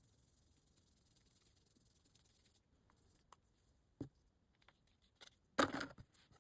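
Small hand-work noises at a workbench: a sharp click about four seconds in, a few light ticks, then a short, louder scraping rustle near the end.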